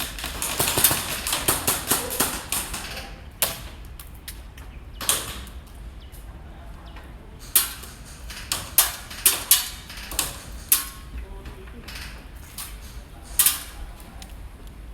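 Airsoft guns firing: a rapid string of shots in the first three seconds, then scattered single shots and short bursts.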